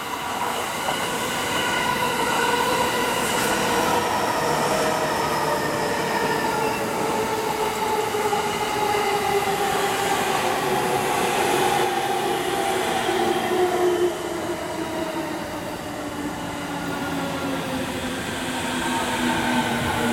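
Shonan-Shinjuku Line electric commuter train running past on the Yokosuka Line tracks. Its motor whine is a set of tones that fall slowly in pitch, over the rumble of wheels on rail. The sound eases slightly about two-thirds of the way through.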